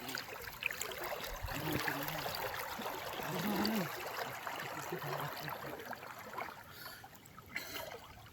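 Water trickling and sloshing in a steady rush, with faint, distant voices now and then.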